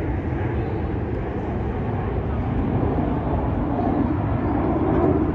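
Steady outdoor rumble, heaviest in the low end, swelling slightly near the end, with voices faint in the background.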